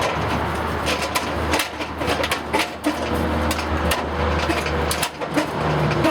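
Irregular sharp clicks and knocks, like hardware being handled, over a steady low hum of a vehicle or traffic.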